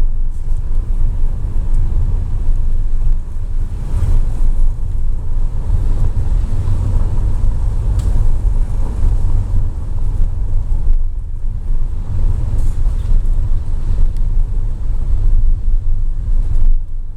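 Steady low rumble of a moving car, engine and road noise together, with a couple of faint clicks.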